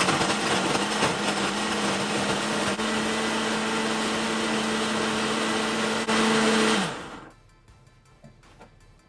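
Countertop jug blender running on a thick strawberry smoothie, its motor giving a steady hum under the noise of the churning fruit. The hum steps up slightly in pitch about three seconds in and gets a little louder near six seconds. About seven seconds in the motor falls in pitch and stops, and only a few faint small knocks follow.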